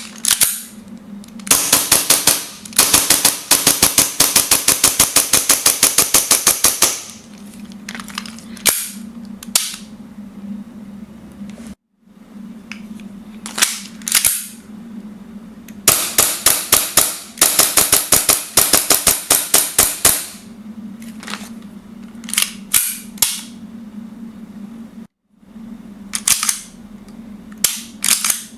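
Armorer Works Hi-Capa 5.1 Hi Speed gas blowback airsoft pistol firing: two long rapid strings of sharp cracks, each lasting several seconds, with single shots and short groups in between.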